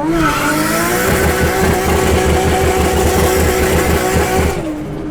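Car engine pulling hard under acceleration, its pitch climbing steadily with a loud rush of engine and exhaust noise, then easing off about four and a half seconds in.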